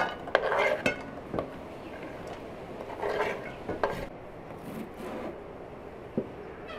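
Knife blade scraping chopped garlic off a wooden cutting board into an enamel bowl, in two spells of scraping, the second about three seconds in, with a few light knocks after.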